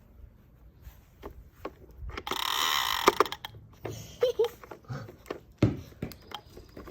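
Plastic toy lawn mower clicking and rattling as a puppy paws and chews at it, with a loud rasping burst lasting about a second, roughly two seconds in.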